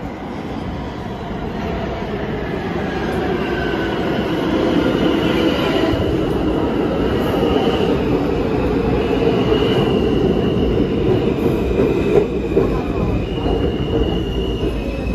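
New York City subway train running through the station, growing louder over the first few seconds and then holding steady, with high wheel squeal coming and going.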